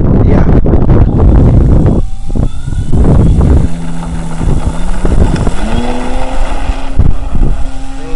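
Sundowner RC racing plane's motor running, then rising in pitch as it is throttled up for the takeoff roll, with wind buffeting the microphone in the first couple of seconds.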